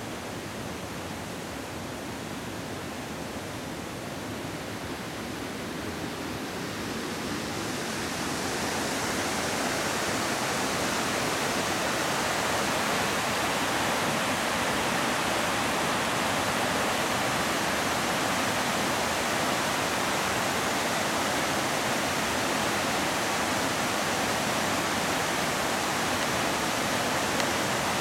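Waterfall rushing steadily, growing louder and brighter about eight seconds in and then holding level.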